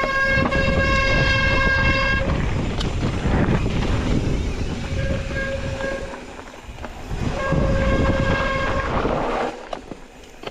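Mountain bike disc brakes squealing under hard braking: three long, steady, high-pitched howls, the first at the start, a shorter one about five seconds in and another near the end. A rough low rumble of riding noise runs underneath.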